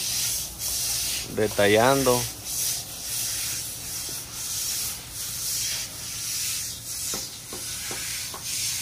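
Stiff brooms scrubbing the wet surface of freshly poured concrete with water, a rhythmic scratchy swish about twice a second. The surface retarder is being washed off by hand to expose the aggregate.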